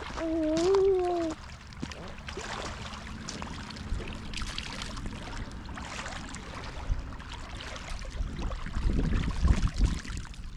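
Hands scooping and splashing lake water, with trickling and dripping, as in washing for wudu at the water's edge. A short hummed voice tone with a wavering pitch comes at the start and is the loudest sound.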